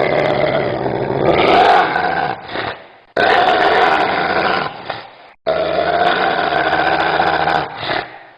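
Dog growling in three stretches of about two and a half seconds each, each ending in a brief silence.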